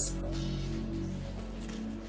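Soft background music with sustained notes, slowly getting quieter.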